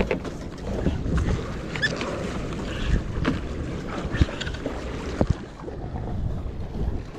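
Wind buffeting the microphone on a small fishing boat at sea, with water sloshing and a few sharp knocks scattered through.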